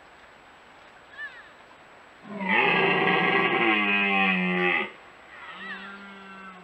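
A young red deer stag gives one long rutting roar of about two and a half seconds, defending his hinds. Fainter short bleats from the year's calves come before and after it.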